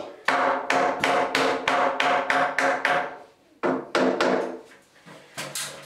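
Hammer tapping a 3x2 timber ceiling stud sideways to line it up with a pencil mark. About a dozen quick taps, roughly four a second, then a pause and a few more taps.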